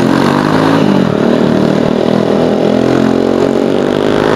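Motorcycle engine running under way. Its note dips slightly and then climbs near the end as the bike speeds up.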